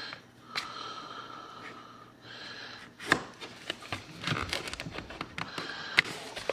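Objects being handled at a table: a string of sharp, irregular clicks and light knocks starting about three seconds in, with a quieter, steadier stretch before it.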